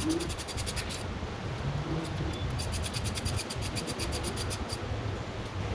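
Hand ratchet clicking rapidly in two runs as the transmission pan bolts are run in, with a low rumble underneath.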